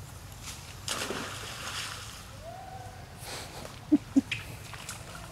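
Pig-tailed macaques splashing and sloshing water as they play in a pond, with two sharp slaps on the water about four seconds in.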